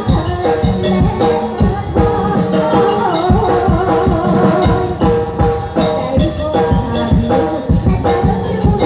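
Likay stage music: a held melody line over a steady, regular percussion beat.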